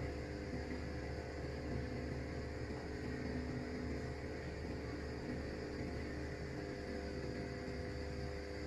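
Steady low electrical hum with a faint hiss, unchanging throughout; the hands coiling the soft dough make no distinct sound over it.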